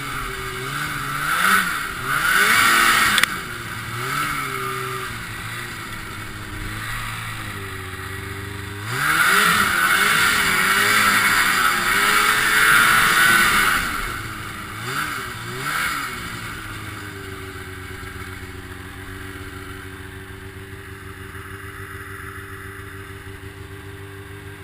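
Ski-Doo Blizzard 5500 snowmobile's 503 cc two-stroke engine revving up and down in several bursts, the longest about five seconds, then settling to a steady low running speed for the last several seconds.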